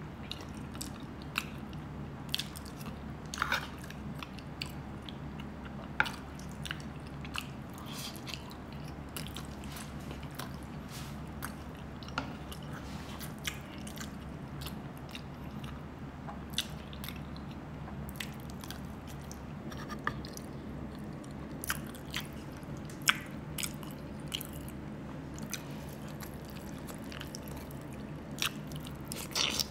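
Close-up mukbang eating sounds: chewing and lip smacking on soft stewed beef oxtail and skin with rice, with many scattered sharp clicks and taps. A steady low hum sits underneath.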